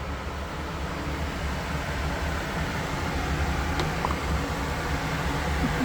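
Gas furnace running: a steady low motor hum with a rush of air that grows slowly louder. The furnace is the one that keeps cycling on and off.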